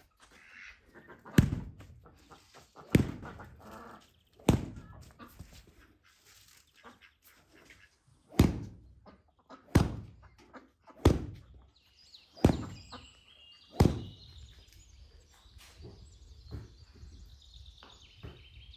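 Eight heavy chopping blows, a pause after the first three, then five more at a steady pace of about one every second and a half. Small birds chirp from about twelve seconds in.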